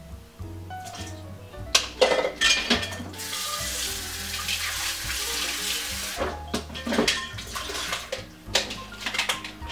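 Background music with a steady bass line. In the middle a tap runs for about three seconds, and a few kitchen clatters come before and after it.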